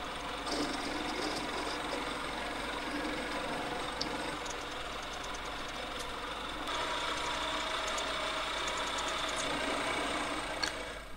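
Sieg SC4 bench lathe running while a 6 mm twist drill in the tailstock chuck cuts deep into the end of a spinning metal bar: a steady motor and cutting noise, with a faint run of ticks through the middle that gets a little louder after about seven seconds.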